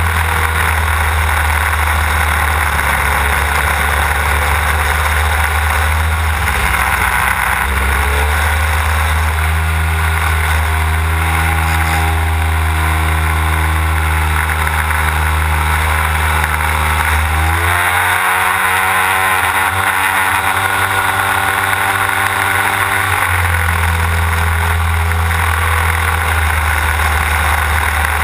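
Desert Aircraft DA-150 twin-cylinder two-stroke gasoline engine of a large model aerobatic plane in flight, propeller running, over the rush of air past the on-board camera. The engine note shifts several times with throttle: it rises sharply about two-thirds of the way through and drops back a few seconds later.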